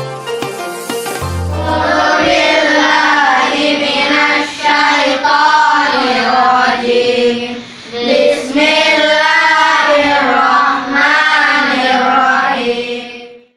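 A song playing: a short plucked-string opening, then singing voices over the music from about two seconds in, fading out near the end.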